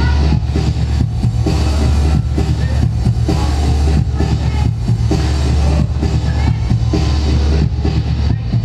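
Loud music with a heavy, steady bass and a regular beat.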